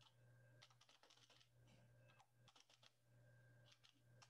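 Near silence with faint computer-keyboard typing: scattered runs of soft key clicks over a low steady hum.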